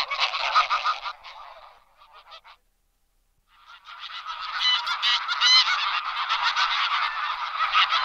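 A large flock of geese calling, many overlapping calls at once. The chorus fades away about two seconds in, cuts to silence for about a second, then swells up again.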